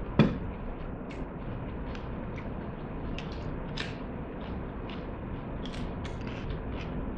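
Eating at a table: a single sharp knock about a quarter-second in, then scattered small crunches and clicks of a raw green chili pepper being bitten and chewed, over a steady low background hum.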